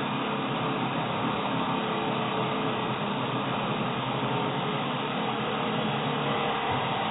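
Angle grinder cutting through steel all-thread (threaded rod), a steady grinding that holds at an even pitch and level throughout.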